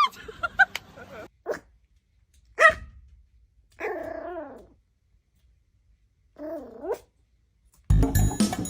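A dog vocalising in short separate calls: a sharp bark about two and a half seconds in, then two longer, lower pitched calls. Background music starts near the end.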